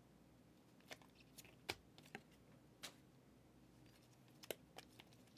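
Faint, irregular clicks and flicks of 2023 Prizm football trading cards being slid off a hand-held stack one at a time, about eight soft ticks spread unevenly over a few seconds.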